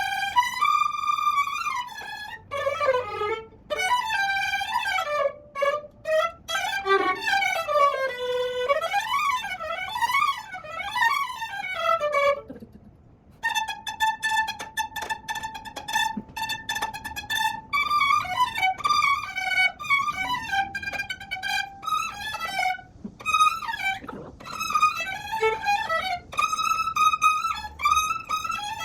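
Solo violin playing with no accompaniment: quick runs sweeping up and down, a brief break about twelve seconds in, then a long held note and further phrases.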